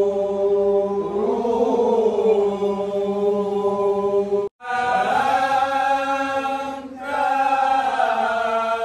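Group of men chanting zikir, Islamic devotional recitation, in long held notes. The chant breaks off for a moment about four and a half seconds in and resumes.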